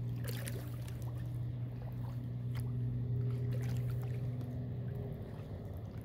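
Kayak paddle strokes with water splashing and dripping off the blade, over a steady low hum that shifts slightly about five seconds in.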